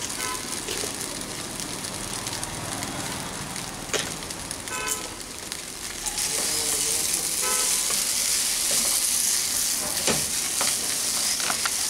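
A wooden spatula stirring and scraping a thick semolina-and-mashed-potato mixture in a non-stick pan over medium heat, with a steady sizzle that gets louder about halfway through. There are a couple of short knocks of the spatula against the pan.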